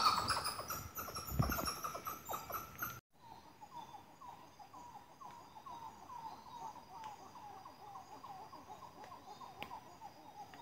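Wild animal calls in tropical forest. For the first three seconds a loud, rapid series of repeated pitched calls, which stops abruptly. It is followed by a faint series of short chirps, about three a second, over a steady high tone.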